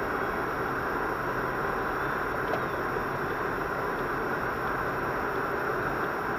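Steady road and engine noise of a car driving at speed, heard from inside the cabin through the dashcam.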